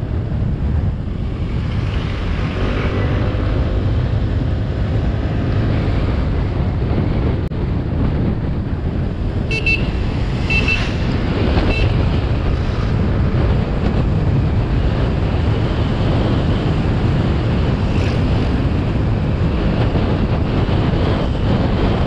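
Wind buffeting the microphone over engine and road noise from a Kymco KRV 180 scooter on the move. About ten seconds in, a vehicle horn gives several short toots.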